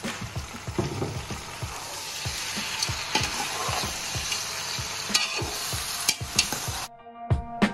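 King prawns with soy sauce sizzling in a large aluminium pot while a metal utensil stirs them, with scattered scrapes and knocks against the pot. The sizzling cuts off suddenly near the end and music with a beat takes over.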